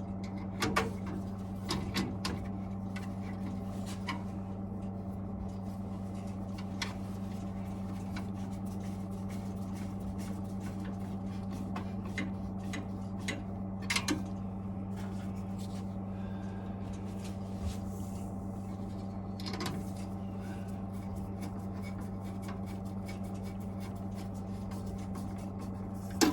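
Scattered light clicks and knocks of metal parts being handled as the burner is fitted back into a Vaillant turboMAX boiler and secured, over a steady low hum.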